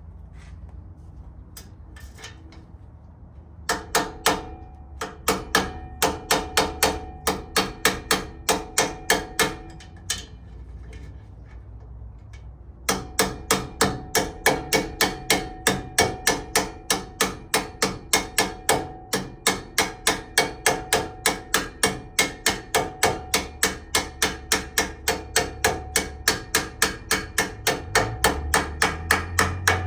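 Steady hammer blows driving a new rear wheel bearing onto a Toyota FJ40 Land Cruiser's rear axle shaft, about three strikes a second, each ringing metallically. There is a pause of about three seconds near the middle before the hammering resumes.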